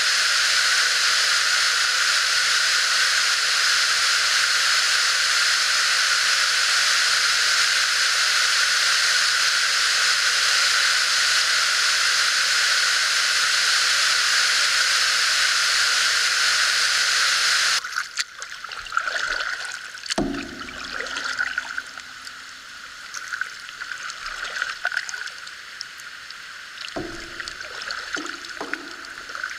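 A steep woodland waterfall cascade rushing in a loud, steady stream of white water. It cuts off abruptly about two-thirds of the way in, giving way to quieter canoe paddling: water dripping and trickling off the paddle, with a few knocks against the canoe.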